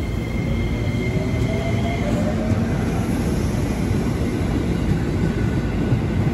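Ex-JR 205 series electric commuter train rolling past the platform as it pulls out: a steady rumble of wheels on the rails, with a faint whine that rises in pitch a second or two in.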